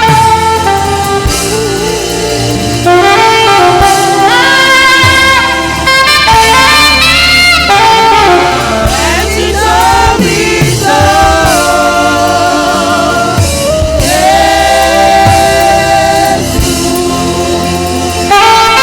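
Saxophone playing a gospel melody over accompaniment with a steady bass, sliding between notes and with vibrato on long held notes.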